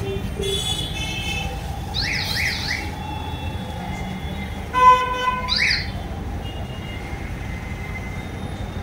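Street traffic: a steady rumble of engines, with several vehicle horn toots, the loudest about five seconds in. Quick rising chirps sound around two seconds in and again near six seconds.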